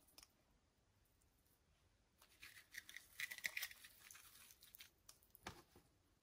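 Faint crackling, rustling handling noise lasting about three seconds, then a single soft knock near the end.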